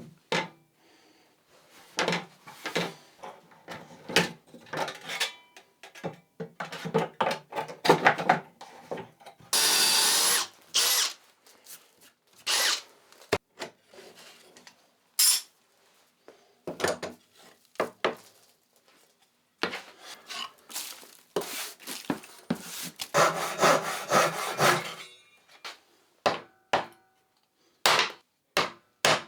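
Woodworking on wooden parts: runs of short sawing and scraping strokes and knocks, with a brief steady power-tool run about ten seconds in and another longer stretch of steady cutting noise later on.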